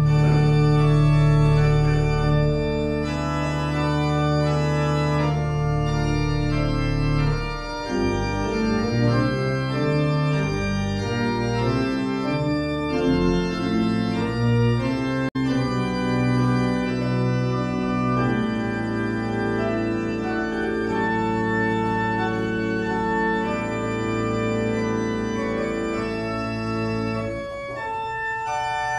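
Church organ playing a prelude of sustained chords: one loud chord held for about seven seconds, then a slower run of changing chords.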